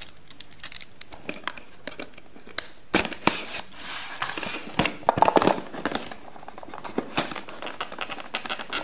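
Rigid cardboard box being pried open by hand: irregular scraping, rubbing and clicking of the stiff card and its flap, busiest from about three seconds in. The opening is somewhat hard because the cardboard is quite stiff.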